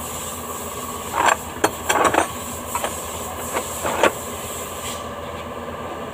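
A handful of short, sharp knocks and clinks, irregular and bunched between about one and four seconds in, over a steady workshop hum.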